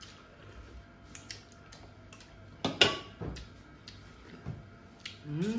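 Small clicks and taps of a meal being eaten off a plate, with one sharp clatter about three seconds in. Near the end comes a short hummed sound from the eater, rising and falling in pitch.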